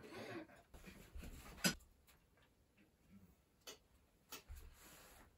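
Spoons and dishes clicking during a quiet meal: scattered sharp clicks and light knocks, the loudest a single sharp click about a second and a half in.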